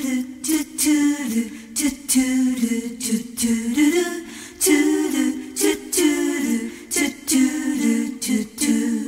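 Background music: a single voice singing a melody with little or no instrumental backing.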